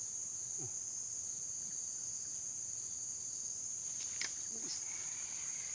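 Steady, high-pitched insect chorus, one continuous shrill drone, with a couple of sharp clicks about four seconds in.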